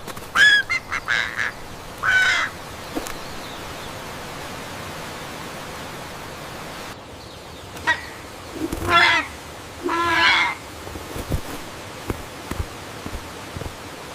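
Bird squawks and caws in short bursts: a few in the first two and a half seconds, then another cluster a little past the middle, over a steady hiss of rain.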